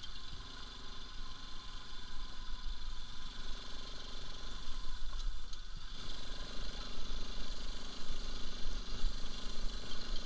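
Bajaj Pulsar RS200's single-cylinder engine running as the motorcycle rides over a rough stony track, with a steady low rumble of road and wind noise. It gets louder about six seconds in.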